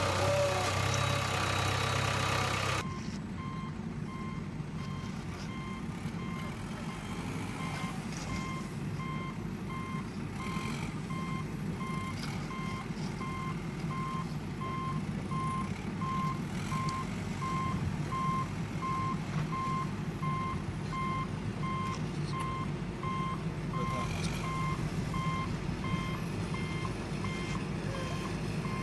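A mini JCB backhoe loader's reversing alarm beeping steadily, about two beeps a second, over a low, steady engine hum. It begins about three seconds in, when a louder engine sound cuts off.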